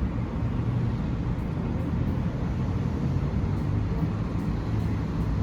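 Steady low rumble of a running vehicle or road traffic, with no distinct events in it.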